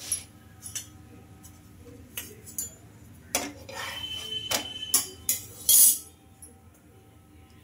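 A spatula scraping and knocking on a nonstick tawa as a paratha is lifted and flipped: scattered light clicks at first, then a busy run of scrapes and knocks in the second half, the loudest just before the end.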